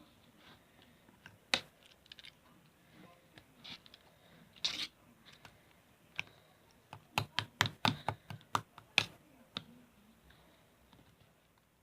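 Scattered sharp clicks and taps, with a quicker run of about ten clicks in the second half.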